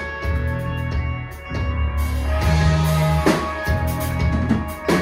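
A live band playing: electric bass, electric guitar and drum kit. Held low bass notes run under the guitar, and two loud drum hits with ringing cymbal tails fall in the second half.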